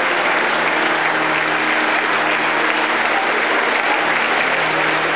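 A crowd applauding steadily, with faint held low tones underneath.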